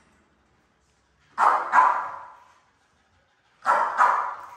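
American bully dogs barking: two quick pairs of loud barks, about two seconds apart.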